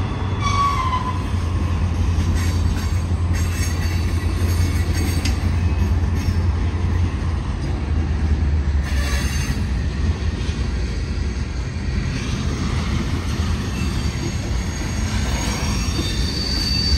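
Freight train cars rolling past close by: a steady rumble of wheels on rail with a couple of sharp clacks, and a thin, high wheel squeal near the end.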